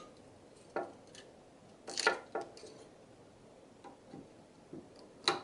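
Scattered light clicks and taps of a screwdriver, small screws and a plastic blower fan being handled while the fan is fitted to a 3D printer's extruder mount. There are about half a dozen separate clicks, the loudest about two seconds in and just before the end.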